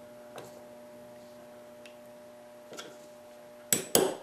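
A couple of faint clicks, then near the end a small hammer starts tapping a pin punch, two quick metallic taps, driving a pin partway into a Smith & Wesson M&P pistol frame to hold the sear housing block in place. A steady electrical hum runs underneath.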